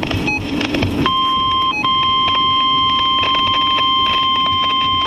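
NOAA Weather Radio receiver audio. It is noisy for about the first second, then the 1050 Hz warning alarm tone starts: a loud, steady tone with a brief drop-out shortly after it begins. The tone signals that a weather alert is about to follow.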